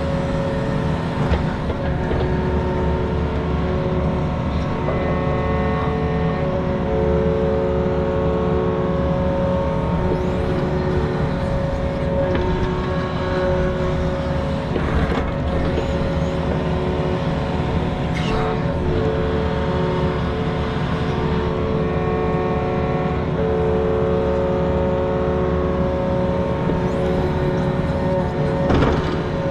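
Mini excavator's diesel engine running steadily under working load, with whining tones that come and go as the hydraulics work. A few sharp knocks are heard, about halfway through, a few seconds later, and near the end.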